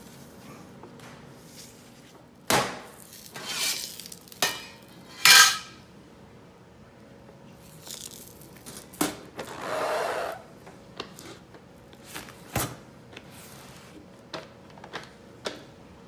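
A metal Pullman loaf pan and its sliding lid clattering and knocking against a stone countertop: a run of metallic knocks in the first half, the loudest about five seconds in, then a short scrape around ten seconds and one more sharp knock, followed by light taps as the baked loaf is tipped out of the pan.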